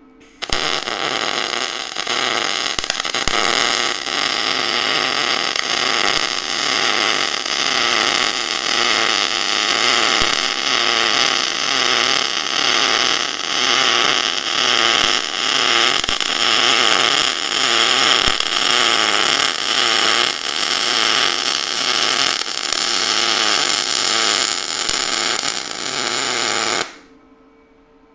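MIG welding arc running ER316L stainless wire, crackling steadily in short-circuit transfer as it lays a fillet bead. It strikes about half a second in and cuts off abruptly near the end.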